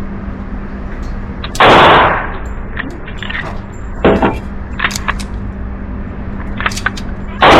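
Two loud .45 ACP pistol shots from a Girsan MC1911S Liberador II 1911, about six seconds apart, the second near the end, each with a short echo. A fainter sharp crack and a few small clicks fall between them.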